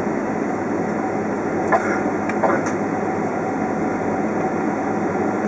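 Steady rumble of a Boeing 767 cabin while the airliner taxis, its engines and cabin air running. Two short knocks sound a little under two seconds in, the second about half a second after the first.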